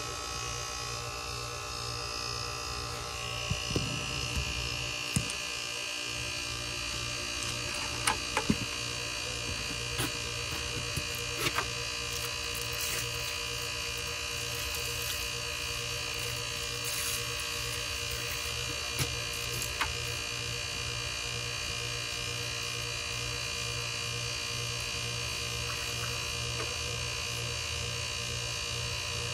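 Rheem heat pump outdoor unit running with a steady buzzing hum; a higher tone joins about three seconds in. A few light knocks and clicks fall in the first dozen seconds.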